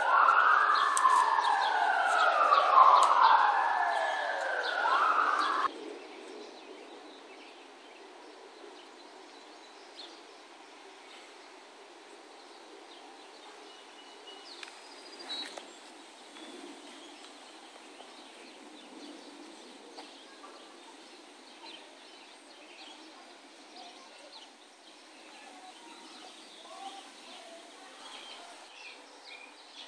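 Emergency-vehicle siren wailing, its pitch rising and falling about every two seconds, cutting off abruptly about six seconds in. After that, faint outdoor background with scattered bird chirps.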